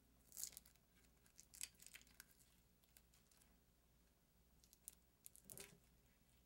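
Faint, scattered scraping and peeling crackles of tape and perished PVA compound being picked off the edge of a CRT's glass, in a few short spells: about half a second in, around two seconds, and again near the end.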